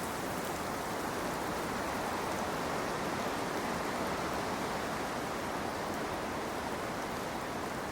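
Steady, even hiss of rain falling through the forest.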